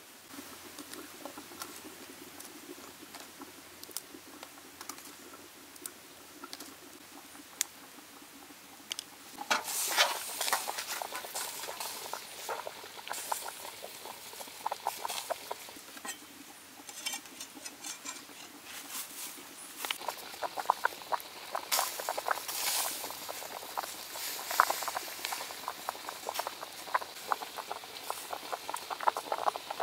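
Cooking over a wood fire, with a wok of fish: a dense run of small crackles and pops starts about a third of the way in and grows busier again after about two-thirds, with faint handling clicks before that.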